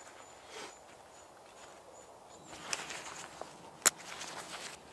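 Rustling of a jacket and backpack straps, then a single sharp plastic click about four seconds in: a backpack's chest-strap buckle being unclipped.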